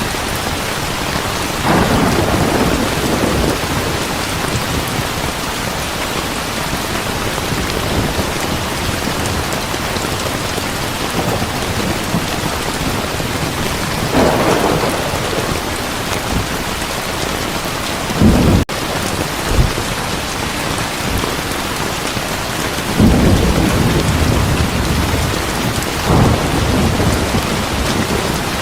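Heavy rain falling steadily, with about five rolls of thunder rumbling over it. Near the middle the sound cuts out for an instant.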